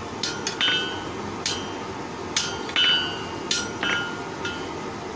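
Blacksmith's hand hammer striking a scroll of square bar on the anvil: light, uneven blows, about one or two a second, each with a short metallic ring. The scroll is being squared up.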